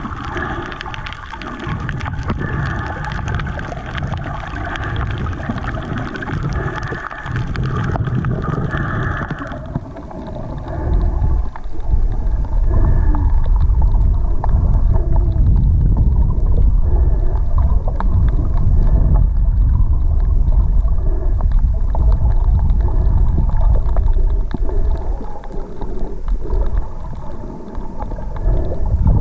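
Muffled underwater noise picked up by a camera in a waterproof housing: a steady rushing wash of water against the housing, turning into a heavier low rumble about ten seconds in.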